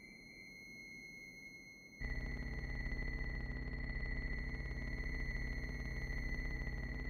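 Electronic film soundtrack: a steady, pure high tone. About two seconds in, a loud, low electronic hum comes in suddenly beneath it and holds steady.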